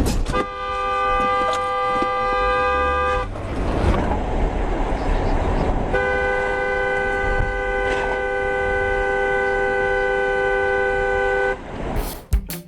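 Car horn held down in two long blasts: the first lasts about three seconds, and the second starts a few seconds later and lasts about five and a half seconds.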